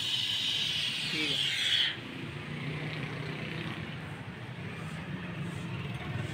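Gas brazing torch flame hissing steadily while heating a copper capillary tube joint, then cut off abruptly about two seconds in. A quieter low rumble of background noise remains after that.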